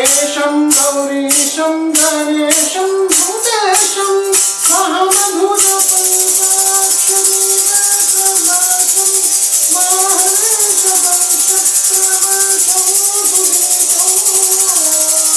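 Music: a sustained melody line with wooden kartal clappers and their metal jingles struck in an even beat, about two strikes a second. About five and a half seconds in, the clappers switch to a continuous, fast jingling shake that carries on under the melody.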